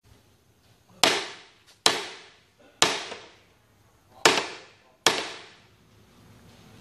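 Five sharp bangs, irregularly spaced about a second apart, each trailing off over about half a second.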